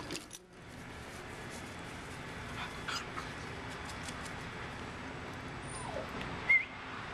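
Basset Hound mix puppy whimpering in a few short, high-pitched whines, the loudest about six and a half seconds in, over a steady background hiss.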